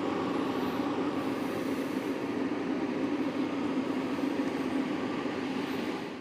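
Heat Wagon P600 electric heater running at full heat, its fan blowing steadily with a low hum. It is drawing about 21 of its maximum 25 amps and running normally.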